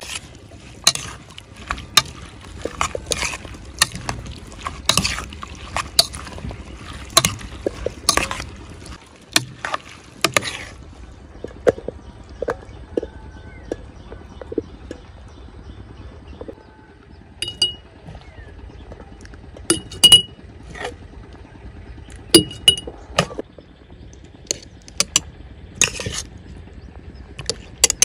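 Metal spoon stirring and scooping sliced garlic in chili sauce in a stainless steel pot, clinking and scraping against the pot many times over. In the second half a few harder taps ring with a clear tone.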